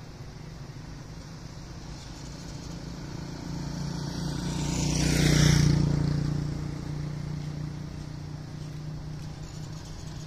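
A motor vehicle driving past on the road, its engine swelling to a peak about halfway through and then fading away.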